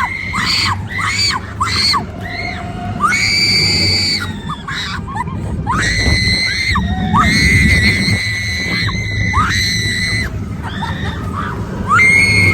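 Roller coaster riders screaming on Expedition Everest: long, high-pitched screams from several voices, one after another, over a steady low rumble from the ride.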